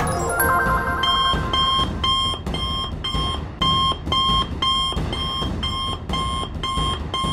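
A short electronic chime, then an electronic alarm beeping steadily, about two and a half short beeps a second: a cartoon emergency-alert sound effect.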